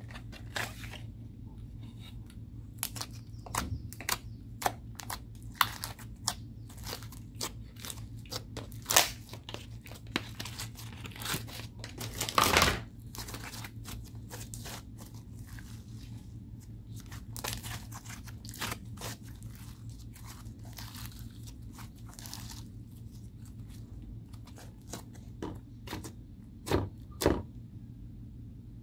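Slime being pressed, stretched and kneaded by hand, giving irregular sticky crackles and pops, with a longer burst of crackling about twelve seconds in, over a steady low hum.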